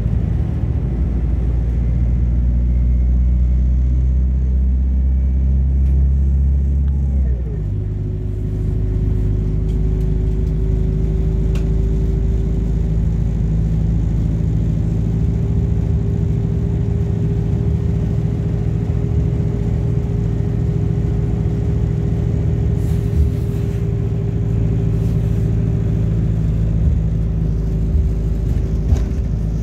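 MAZ-226 bus heard from inside the cabin while under way, its engine and drivetrain running with a steady low hum. About seven seconds in the engine note changes and dips briefly, and from then on a steady whine runs over the hum.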